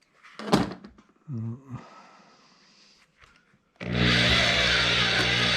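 A knock about half a second in, then near the end a drill starts and runs steadily at speed, turning a Stripmaster wire stripper.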